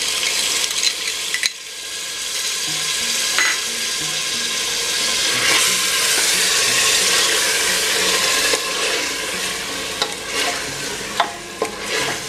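Chicken and masala sizzling on high flame in a pressure cooker as yogurt is spooned in and stirred. The sizzle grows louder for a few seconds in the middle, and the spoon clicks against the pot near the end.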